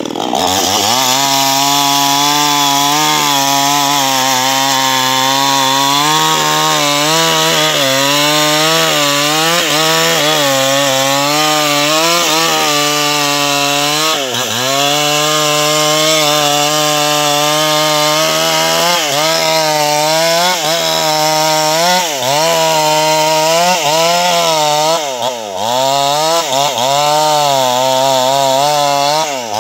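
Two-stroke chainsaw revving up and running at high speed while ripping lengthwise along a sengon (albizia) log to cut planks. The engine note wavers and dips briefly several times, about halfway through and again near the end, as the chain loads in the cut.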